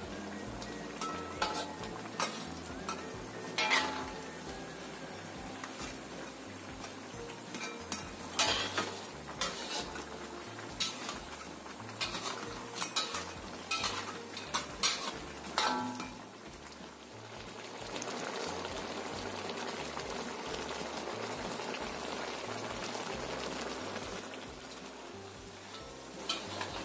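Metal spatula scraping and clinking against a wok as crabs in a thick oyster-sauce gravy are stirred, a dozen or so separate strokes in the first half. Then a steady bubbling sizzle for several seconds as the sauce cooks down.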